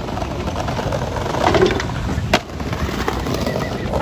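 Skateboard wheels rolling over brick pavers with a steady rumble, and a single sharp clack of the board a little past two seconds in.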